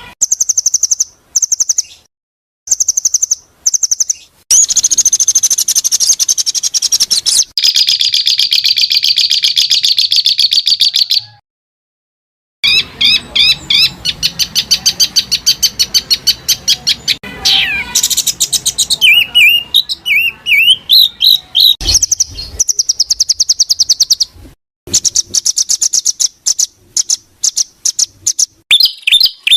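Several songbirds singing high-pitched songs, with fast trills and long strings of quick repeated notes, broken off by abrupt short silences where the recordings are spliced together. This is a masteran track: bird song compiled for caged songbirds to learn from.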